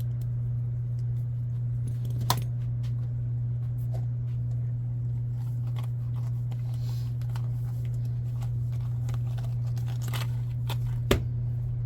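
Small RC wheel parts being handled on a bench: a few sharp clicks, the clearest about two seconds in and near the end, over a steady low hum.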